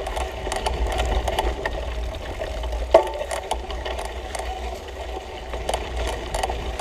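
Mountain bike rattling over a rough dirt trail: chain slap and frame knocks in quick irregular clicks, over a steady low rumble, with one sharper knock about three seconds in.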